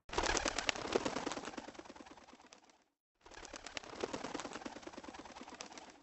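Birds calling in two stretches, each starting abruptly and fading away, with a brief silence between them about halfway through.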